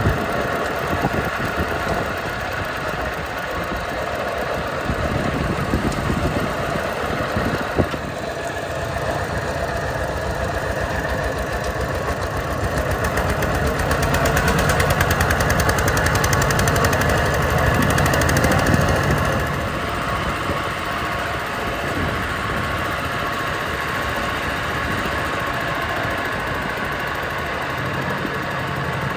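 An engine running steadily with a fast, even firing pulse, getting somewhat louder for a few seconds past the middle and then settling back.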